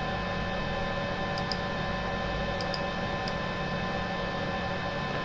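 Steady electrical hum made of several constant tones. A few light computer-mouse clicks come between about one and three and a half seconds in: two quick pairs, then a single click.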